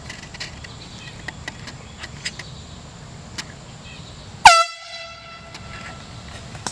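An air horn blasts once, about four and a half seconds in: a sudden, very loud tone that dips in pitch as it starts, then carries on fainter for about a second and a half. A few faint clicks come before it.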